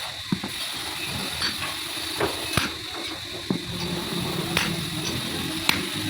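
Irregular light knocks and clicks, roughly one a second, over a steady background hum.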